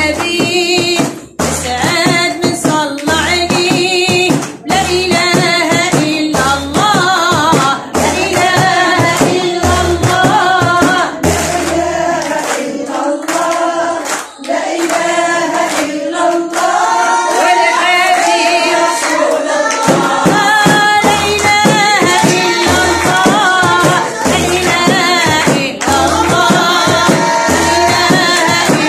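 A woman singing devotional praise of the Prophet in Arabic, keeping a steady beat on a hand-held frame drum. The drum stops for several seconds in the middle while the singing goes on, then comes back in.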